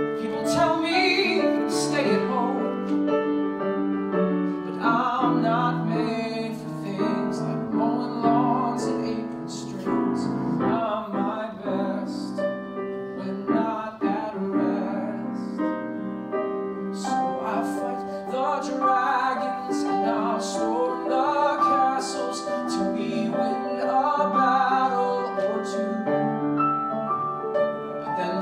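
Piano accompaniment to a slow musical-theatre song, with a man singing long held notes over it at times.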